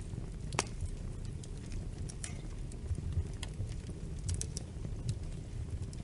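Wood fire crackling: a steady low rumble of burning with scattered sharp pops and snaps, the loudest about half a second in and a quick cluster of them a little after four seconds.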